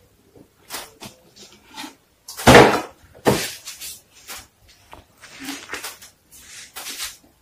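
Crunchy bite into a toasted-bread and lettuce sandwich, the loudest crunch about two and a half seconds in, followed by a string of smaller crunching chews.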